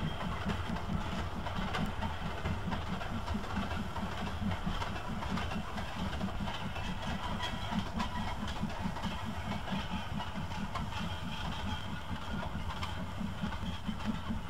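Steam-hauled freight train running on the line, a steady, quick, even beat over a low rumble.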